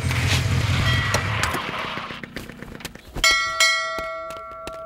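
A motorcycle engine runs and fades away over the first second and a half. About three seconds in, a temple bell is struck twice in quick succession and rings on with a sustained tone.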